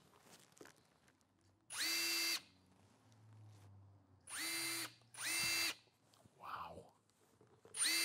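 Metabo HPT 36V Multivolt Triple Hammer impact driver free-spinning with no load in three short trigger pulls. Each pull rises quickly to a steady high whine and stops, and a fourth pull starts at the very end.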